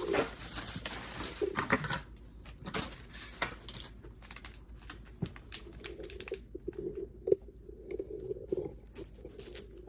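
Computer-part packaging being opened by hand: plastic and cardboard crinkling and tearing in the first couple of seconds, then scattered handling clicks.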